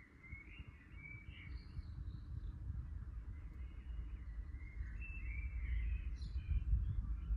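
Low rumble of thunder building steadily louder, with birds chirping in short phrases over it.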